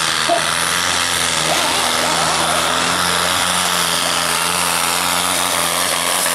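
Modified diesel pulling tractor running flat out under full load as it drags the weight-transfer sled, a loud, steady engine drone.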